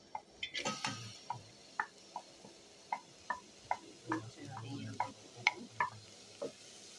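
Wooden spoon knocking and scraping chopped onions off a ceramic plate into an aluminium pot: a string of sharp, light clacks, two or three a second.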